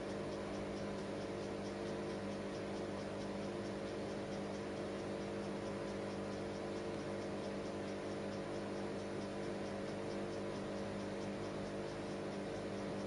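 A steady machine hum made of several held tones over a soft hiss, unchanging throughout.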